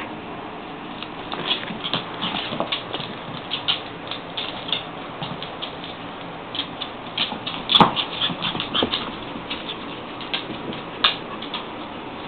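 Puppies and wolves at play: an irregular string of short, high dog yips and scuffling. A sharper knock comes about eight seconds in.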